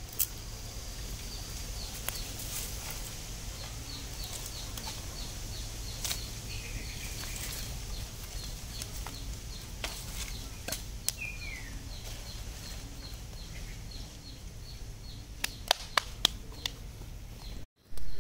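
Outdoor rural ambience: a steady series of short, high chirps, about three a second, with one falling chirp near the middle. Scattered sharp taps or clicks, three in quick succession near the end.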